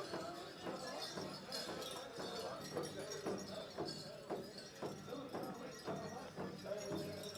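Irregular knocking steps and jingling of dancers' bells, about two knocks a second, with voices murmuring underneath.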